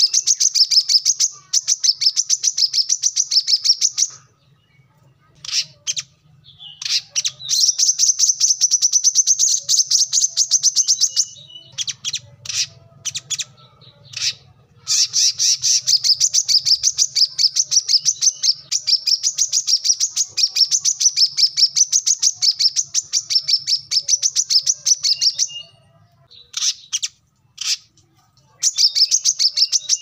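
Male brown-throated sunbird singing: long runs of rapid, high chattering notes, each lasting several seconds, broken by short pauses that hold only a few separate sharp chips.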